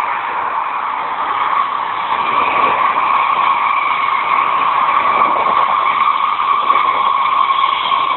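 DB Class 425/426 electric multiple unit running with a steady, high-pitched squealing whine over its running noise, the sound behind the trains' nickname "Quietschie" (squeaker).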